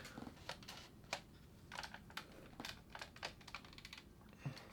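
Remington Rand Deluxe Model 5 manual portable typewriter being typed on slowly: faint, irregular clicks of keys and type bars striking, roughly two or three a second.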